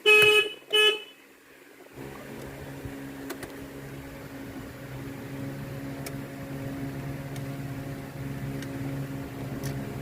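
Honda car horn giving two short toots, the first about half a second long and the second briefly after it. About two seconds in, a steady low hum sets in and continues.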